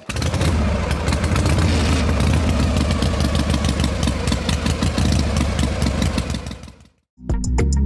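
Engine sound for a miniature toy tractor pulling a loaded trolley: a steady low drone with a fast, even rattle, like a small engine running. It begins sharply and fades out near the end.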